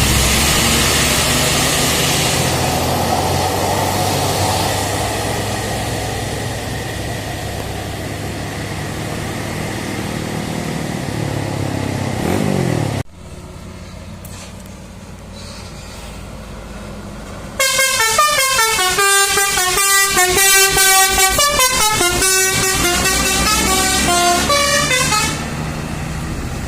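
A bus's heavy engine running, rising in pitch just before it cuts off. Then a telolet multi-tone musical bus horn plays a quick tune of changing notes for about eight seconds.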